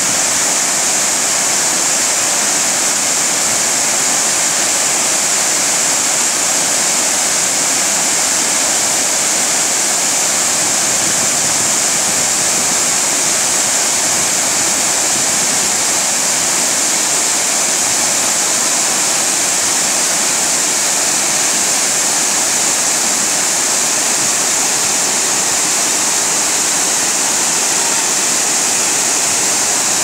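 Water from a wide multi-tiered waterfall pouring over rock ledges into a pool: a loud, steady rushing hiss that does not change.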